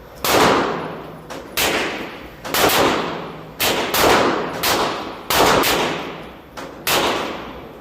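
Semi-automatic .22 rifle, an HK416-style rimfire, firing about a dozen shots at an uneven pace, some in quick pairs, each crack followed by a ringing echo that dies away.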